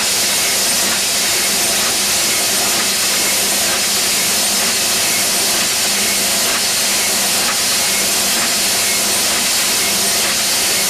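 Small sheet-fed printing press running, a loud, steady, hissing mechanical noise.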